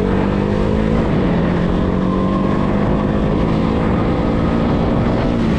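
Motorcycle engine running steadily under way, its note holding an even pitch.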